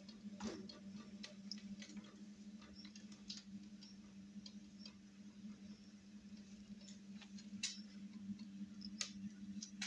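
Light scattered clicks and ticks from the wooden window-frame lid being handled and lowered, over a faint steady low electric hum.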